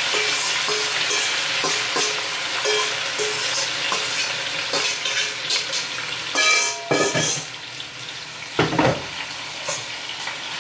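Dry Mexican-style rice and pasta sizzling as it fries in hot oil in a pan, a steady hiss, with a couple of brief clatters around the middle.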